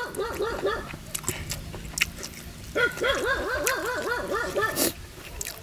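A dog yipping in quick runs of short, high, arching calls, about five a second: a brief run at the start and a longer one from about three seconds in to near five seconds. Faint clicks of eating lie between the runs.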